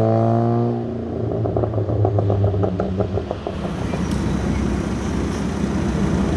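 Volkswagen Golf R engine held at high revs, then let off about a second in, followed by a quick run of exhaust pops and crackles as the revs fall. A rougher, noisier engine sound follows.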